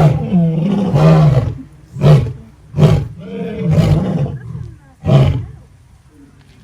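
Lion roaring: a series of deep roars and grunts about a second apart, the last one a little after five seconds in.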